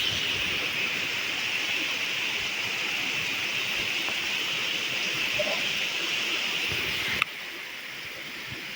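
Heavy rain pouring down in a steady rushing hiss, which cuts off abruptly about seven seconds in to a quieter hiss.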